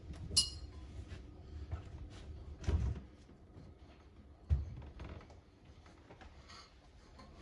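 A few knocks and thumps from a steel roll cage being worked into place inside a car: a sharp metallic clink with a brief ring about half a second in, then two heavy thumps near three seconds and four and a half seconds.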